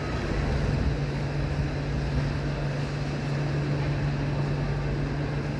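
Railway station concourse ambience: a steady low drone under an even wash of background noise.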